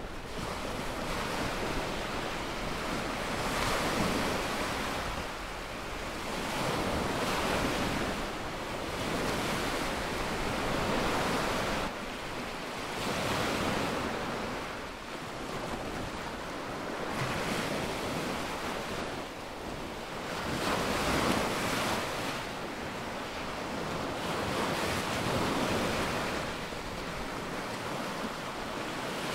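Small waves breaking and washing up a sandy beach, the wash swelling and easing every three to four seconds.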